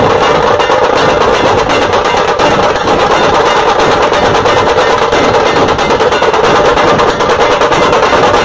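Massed dhol drums of a dhol-tasha troupe beaten together in a fast, loud, unbroken rhythm.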